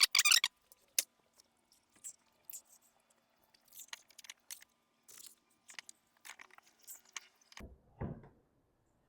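Drying towel rubbing and squeaking on the car's door jambs: a loud squeaky wipe right at the start, then light scattered rubs and squeaks, with a low thump about eight seconds in.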